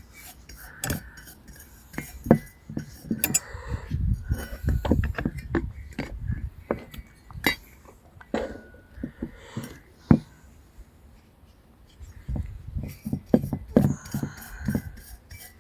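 Metal tool scraping and tapping on a sooted-up diesel heater part, with many irregular sharp clinks and knocks as thick carbon deposits are knocked off. The heavy carbon comes from a split gasket letting in air.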